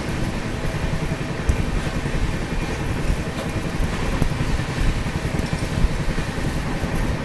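Moving Shatabdi Express train heard from outside its coach: a steady low rumble of wheels on the track with the rush of passing air, and a few faint clicks.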